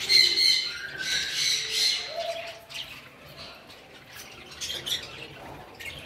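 Aviary birds, parrots among them, chirping and squawking, busiest in the first two seconds, with a short whistle about a second in.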